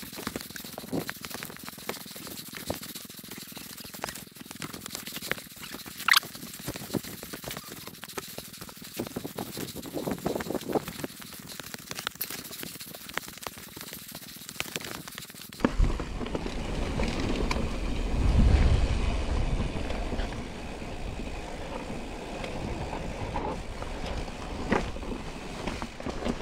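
Mountain bike riding down a rough trail: tyres on loose stones and gravel, with frequent small clicks and rattles from the bike. About two-thirds of the way through the sound changes suddenly to a deep steady rumble.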